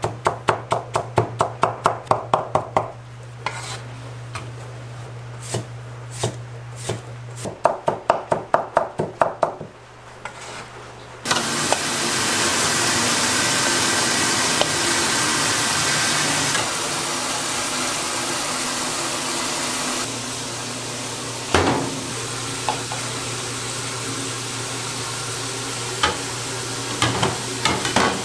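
A cleaver chopping cucumber into thin strips on a cutting board, fast even chops at about five a second, in runs with short breaks. About eleven seconds in this gives way to a steady hiss from a steaming noodle pot, with a few knocks of porcelain bowls set down on a steel counter.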